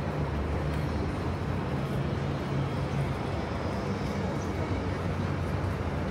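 Steady urban street noise: a continuous wash of road traffic with a low, even hum.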